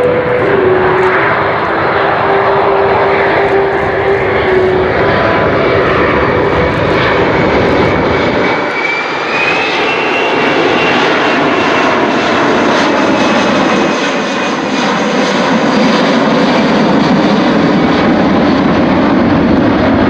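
Boeing C-17 Globemaster III's four Pratt & Whitney turbofan engines running loud and steady as the jet flies its display. A tone falls in pitch over the first few seconds, and a higher whine rises about halfway through.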